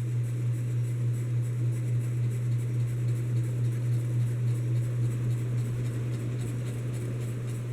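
Hampton Bay Landmark Plus ceiling fan running, its motor giving a steady low electrical hum.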